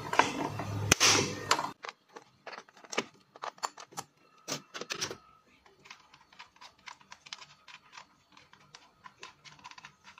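Sharp metal and plastic clicks and taps as a T-handle spark plug socket wrench and an ignition coil are handled in the engine bay. A few louder clicks come in the first half, then a run of small quick ticks. A steady background hum cuts off abruptly under two seconds in.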